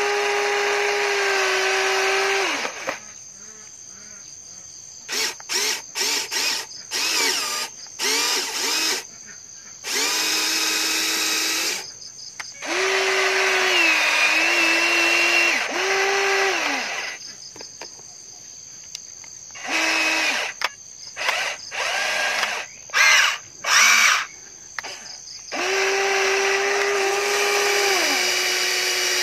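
The electric gear motors of a Huina RC excavator whining in stop-start bursts as the boom, arm and bucket move. There are several steady whines a few seconds long that start and cut off abruptly, and between them clusters of quick short blips as the controls are tapped.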